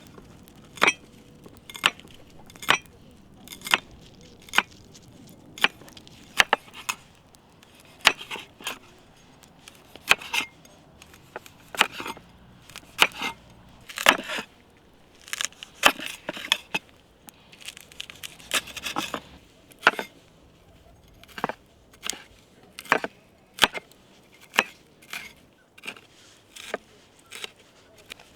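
A blade chopping on wood: sharp knocks, roughly one a second, some in quick pairs.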